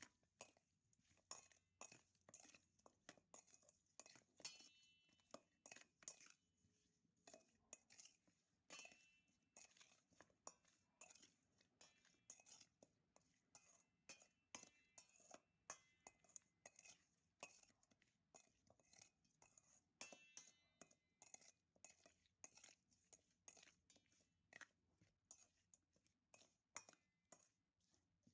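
Faint, irregular clinks and knocks of raw chicken wings and fingers against a stainless steel mixing bowl as the wings are mixed with seasoning by hand, some strikes leaving a brief metallic ring.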